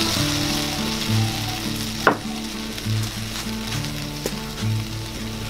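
Coconut milk sizzling in a hot wok of sliced jackfruit seeds over a wood fire, the hiss slowly dying down, with one sharp pop about two seconds in. Soft background music with a slow low beat underneath.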